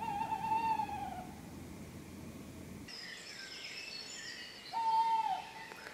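An owl hoots: a long steady note that falls away at its end, once at the start and again near the end. From about halfway, songbirds of the dawn chorus sing high twittering phrases behind it.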